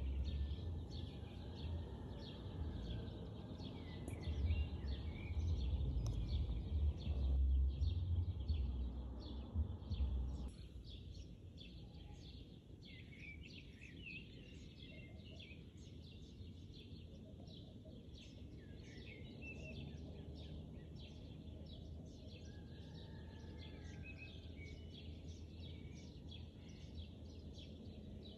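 Small birds chirping, many short calls one after another over a steady hiss. A low rumble underlies the first ten seconds or so and stops suddenly.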